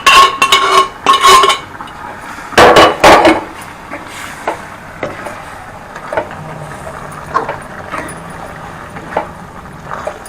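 Metal cookware clanking: several loud ringing knocks in the first second and a half and two more around three seconds in, then softer scattered clinks and scraping. This is the cooked goat boti being tipped and scraped out of the pot into the pan of masala and stirred in.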